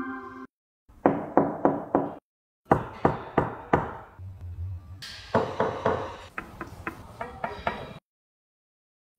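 Knuckles knocking on the front bumper and lower grille of a Zeekr 007: four knocks, a short pause, about five more, then a quicker run of lighter taps that stops abruptly.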